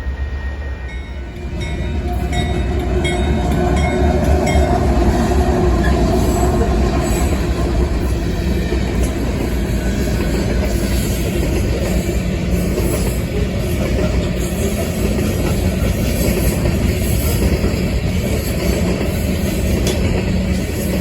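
Union Pacific coal train rolling past, a steady rumble of freight-car wheels on the rails that grows louder about two seconds in.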